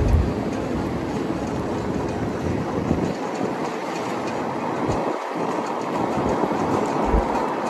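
Steady road and wind noise from a moving car, with a few low bumps.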